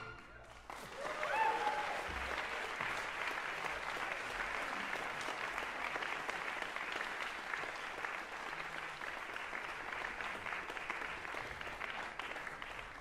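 Audience applauding steadily, with a short whoop about a second in.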